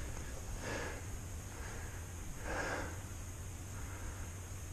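A person breathing close to the microphone: three breaths about two seconds apart, over a steady low hum.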